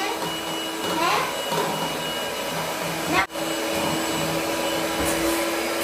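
Electric hand mixer running steadily, beating eggs and powdered sugar for a cake batter, with a steady whirr and hum. It breaks off for an instant about three seconds in.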